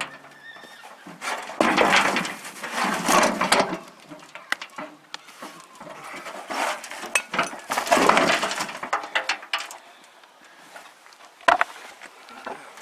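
Large plastic pot of compost tipped upside down into a wheelbarrow and shaken loose: two long stretches of compost and roots sliding and the pot scraping against the barrow, with scattered knocks and one sharp knock near the end.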